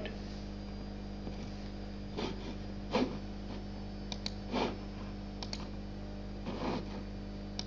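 A few scattered clicks and soft knocks at a computer, the slide being advanced, over a steady low hum.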